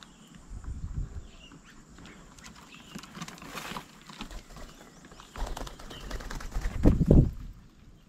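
Wing flaps of doves and mynas landing and taking off at a wooden feeding table close to the microphone, in several short bursts with the loudest near the end, and faint bird chirps in between.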